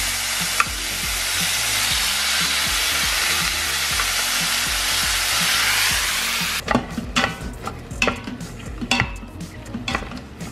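Ground beef sizzling steadily as it browns in an Instant Pot's stainless steel inner pot, stirred with a meat chopper. About two-thirds of the way in the sizzle cuts off abruptly, and quieter scraping and clicks of the chopper against the pot follow.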